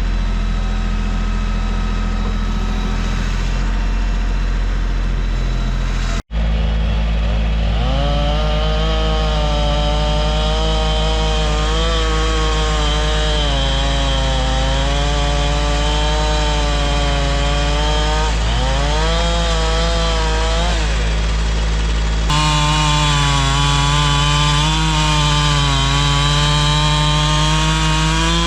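A gas chainsaw running under load, cutting lengthwise through a log to mill lumber. Its engine pitch sags and recovers as it cuts. The sound breaks off abruptly about six seconds in and shifts again near the end.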